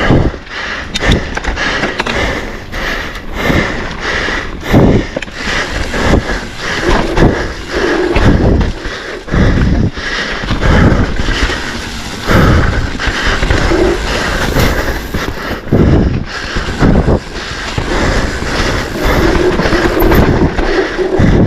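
Mountain bike ridden fast down a dirt trail: tyre noise and a steady stream of irregular knocks and rattles from the bike going over roots and rocks, with wind on the microphone.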